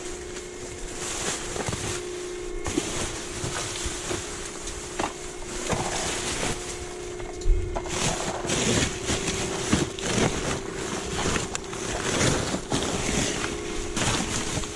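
Plastic trash bags and bubble wrap rustling and crinkling as gloved hands dig through them, with a steady low hum underneath and a single knock about halfway through.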